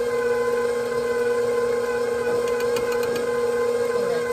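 KitchenAid Professional 5 stand mixer running on a slow speed, beating butter, sugar and eggs in its steel bowl: a steady motor hum with a constant whine.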